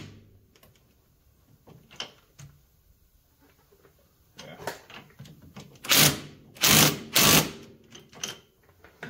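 Cordless impact wrench hammering in short bursts as it tightens a suspension bolt: a softer burst about five seconds in, then three loud bursts in quick succession, with a few small clicks of handling before them.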